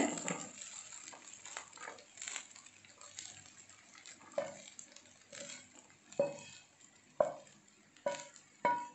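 Spatula scraping fried rice out of a frying pan onto a plate, soft at first. From about halfway it knocks sharply against the pan several times, each knock ringing briefly.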